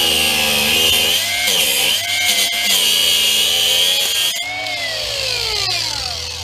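Power cutting tool running and cutting, its pitch dipping and recovering as it bites under load. About four seconds in it is switched off and winds down, its pitch falling steadily.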